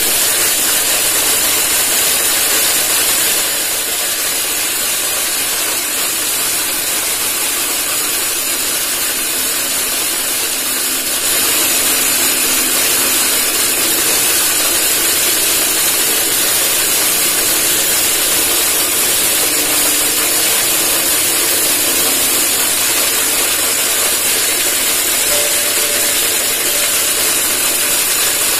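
Homemade corn cracker made from a biscuit tin, driven by an electric motor, running steadily while it grinds dried corn kernels into cracked chicken feed: a loud, dense grinding noise that gets a little louder about eleven seconds in.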